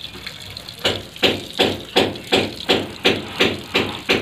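Bare feet stamping on a soaked, soapy blanket on a wet concrete floor: a regular run of wet slaps, about three a second, starting a little under a second in.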